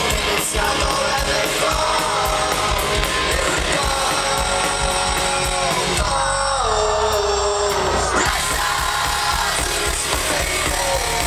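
Pop-punk band playing live through the PA, with loud shouted-sung vocals over electric guitar, bass and drums, heard from within the audience. A little past the middle the cymbals and high end drop away for about two seconds while a sung line steps down in pitch.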